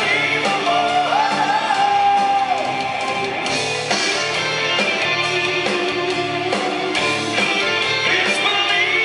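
A live heavy metal band playing a song: a male lead vocal holds long sung notes over electric guitars, bass guitar and drums.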